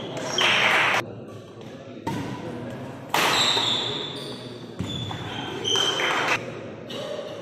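Badminton doubles rally: several sharp racket hits on the shuttlecock, roughly a second apart, with shoes squeaking on the wooden court floor, echoing in a large hall.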